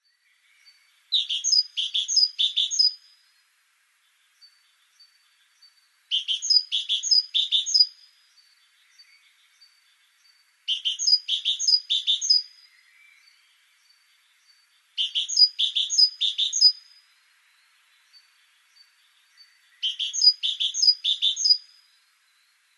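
Great tit singing: five phrases spaced a few seconds apart, each a quick run of the same short motif repeated three times. Faint short high notes sound between the phrases.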